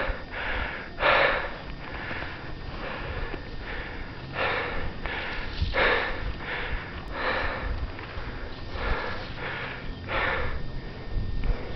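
Heavy, rapid breathing close to the microphone from a person who is out of breath: loud rushing breaths in and out, about one a second.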